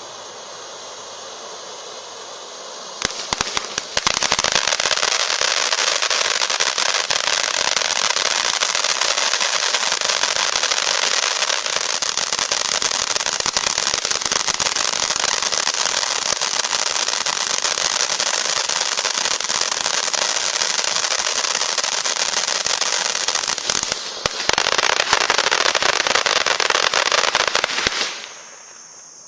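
Cosmos Stjernetårnet ground fountain firework: a steady hiss of spraying sparks for about three seconds, then loud, dense crackling of crackling stars that eases briefly near the end before a final louder spell, then stops suddenly.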